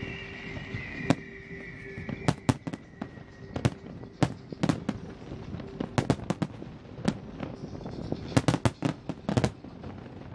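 Fireworks display: aerial shells bursting one after another, a string of sharp bangs with a dense rapid cluster near the end. A high whistle slides down in pitch during the first couple of seconds.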